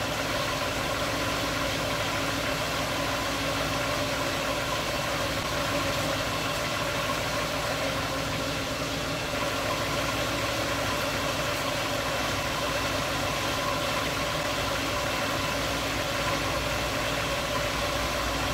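1996 Ford Mustang engine idling steadily while it warms up, circulating antifreeze through the cooling system as it is bled.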